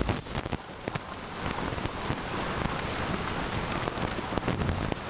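Steady wind and water noise with scattered crackles throughout.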